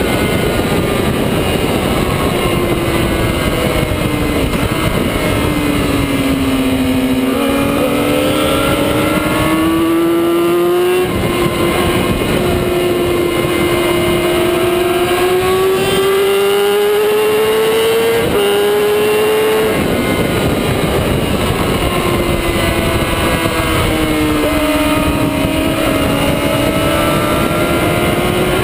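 Onboard sport-bike engine at racing speed, its pitch rising and falling between accelerating and braking, with abrupt steps in pitch at gear changes, over steady wind rush.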